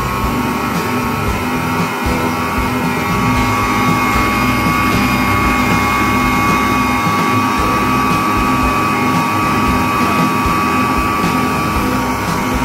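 Electric stand mixer running steadily with a constant motor whine as it beats cake batter, over background music.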